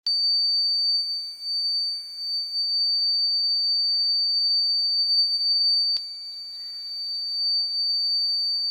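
Piezo buzzer of a simple transistor door-alarm circuit sounding one steady high-pitched tone: the alarm is triggered. About six seconds in there is a click, and the tone is quieter for a second or so before coming back up.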